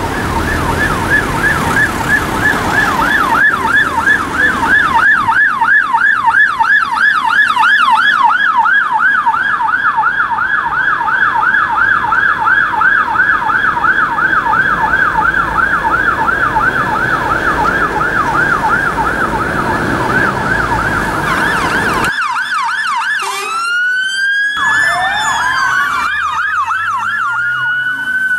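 Police car's electronic siren on fast yelp, sweeping up and down about four times a second over traffic noise. About three-quarters of the way through it cuts off, and a siren with slow, long rising sweeps takes over.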